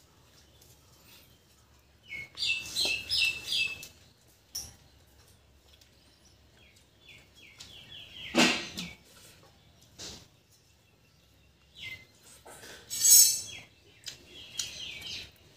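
Small birds chirping in short, quick runs of repeated high notes, with two louder, harsher bursts partway through.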